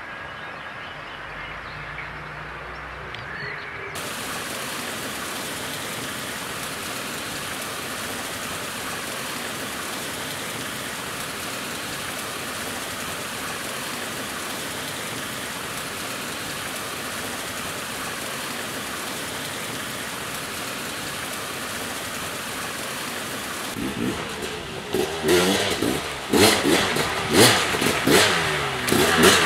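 Steady rush of water pouring over a small waterfall. About 24 s in, the KTM 300 XCW's single-cylinder two-stroke engine comes in loud, revving up and down as the bike is ridden.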